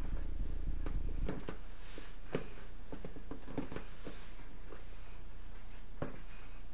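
Hands working cookie dough in a plastic mixing bowl, with scattered light knocks and clicks as the bowl and a plastic container are handled. A low steady hum cuts off about a second in.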